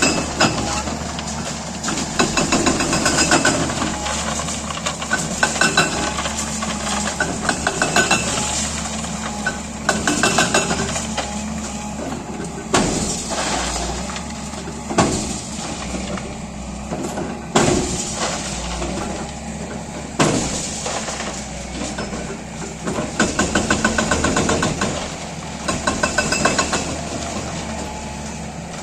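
JCB 205 excavator's hydraulic breaker hammering concrete in repeated bursts of rapid, even blows, each one to two seconds long, over the steady running of the excavator's diesel engine.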